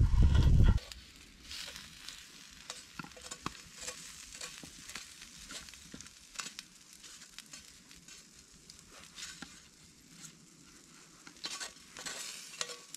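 Potatoes and steak sizzling faintly in a frying pan while a wooden stick stirs and scrapes the food, with scattered small clicks. A loud low rumble fills the first second.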